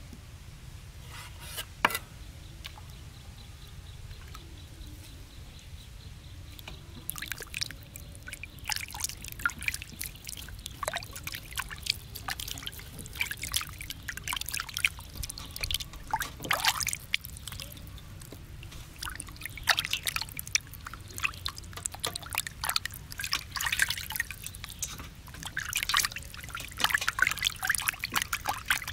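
Water splashing, sloshing and dripping as hands wash raw chicken drumsticks in a steel basin of water; it starts about seven seconds in after a quieter stretch with a couple of sharp knocks.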